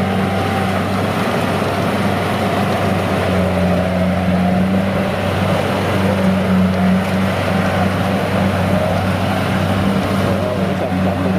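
Kubota DC-70G rice combine harvester's diesel engine running steadily under load while the machine cuts and threshes rice in soft, sticky mud.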